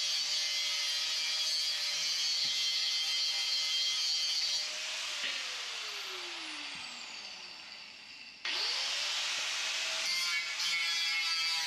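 Handheld power tool grinding the steel floor pan down to bare metal for a welding ground point. About five seconds in the motor is let go and spins down with a falling pitch, then about eight and a half seconds in it starts again and runs back up to speed.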